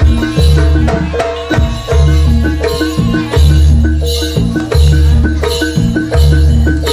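Live Javanese jaranan ensemble playing dance accompaniment: gamelan-style mallet instruments ring out a quick repeating figure over drums, with a deep boom about every second and a half.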